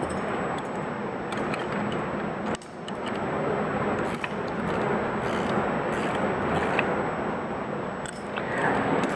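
Scattered light metal clicks and clinks of hand assembly work on a steel tailwheel tow dolly's lifting arm, over a steady rushing background noise.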